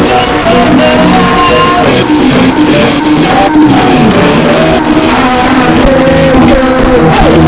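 Loud music: a band rehearsing, with a voice singing a gliding melody over the instruments.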